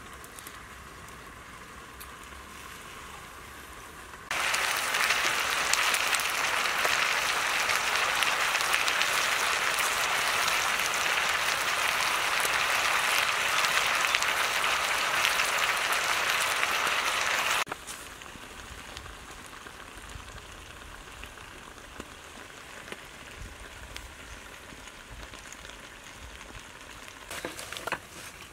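Cabbage frying in a wok, a loud, dense, even sizzle that starts abruptly about four seconds in and cuts off about thirteen seconds later. Before and after it, only a quiet hiss with a few small clicks near the end.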